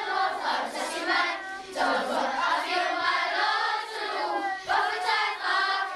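A choir of young schoolchildren singing together, in sung phrases with short breaks between them.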